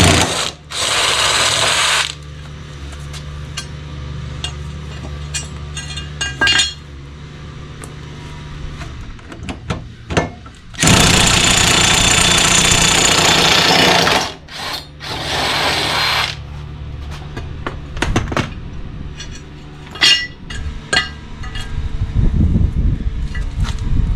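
Impact wrench hammering off mower blade bolts in several bursts, the longest about three seconds, with sharp metal clicks and clinks in between.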